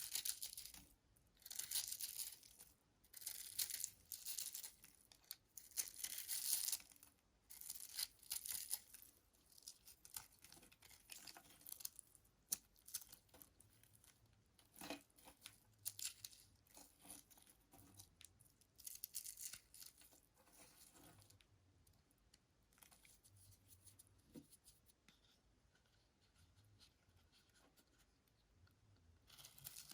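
A knife blade cutting through a bar of soap: crisp scraping strokes, one after another, louder and closer together in the first several seconds, then fainter and more spaced out, picking up again right at the end.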